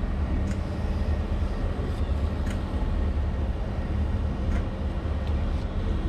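Excavator's diesel engine running steadily, heard from inside the cab as an even low rumble, with a few faint clicks over it.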